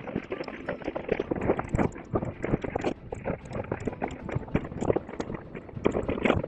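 Mountain bike clattering over rough, rocky trail: a dense, irregular run of knocks and rattles from tyres striking rock and the bike shaking.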